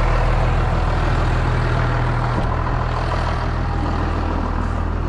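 Tractor engine running steadily, with a slight change in its note about two and a half seconds in.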